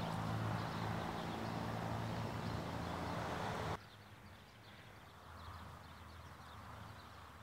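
A steady low engine-like hum cuts off suddenly about four seconds in, leaving a faint quiet outdoor background.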